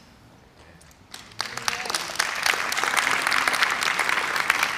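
Audience applauding, many hands clapping together, starting about a second in and holding steady.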